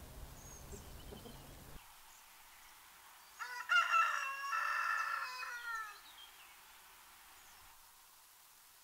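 A rooster crowing once, a long crow of about two and a half seconds that drops in pitch at the end.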